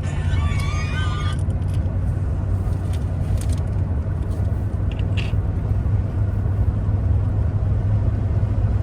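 A Dodge being driven: a steady low engine and road rumble. A brief higher-pitched sound comes near the start.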